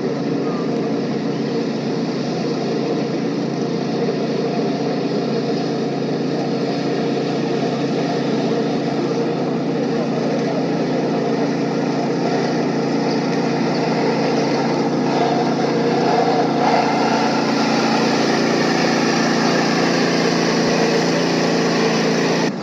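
An engine running steadily without a break, holding an even pitch.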